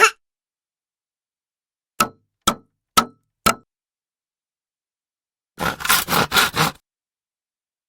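Sound-effect hits: four sharp knocks about half a second apart, each with a brief ring, then a quick rattling cluster of strikes lasting about a second.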